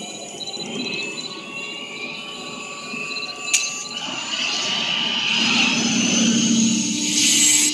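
DeLorean car launched by remote control. A sharp click comes about three and a half seconds in; then the engine revs and the tyres squeal as the car pulls away, growing louder and stopping abruptly at the end.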